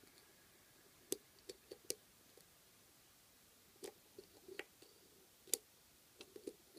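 Faint, irregular clicks in small clusters: a short hook pick working the pin tumblers of an ABUS 41/50 padlock under tension, pins being lifted and set one at a time. The sharpest click comes a little past halfway.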